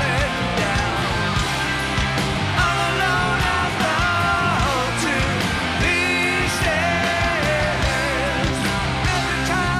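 Hard rock band playing live: a male lead voice sings sustained, bending phrases over electric guitars, bass and drums.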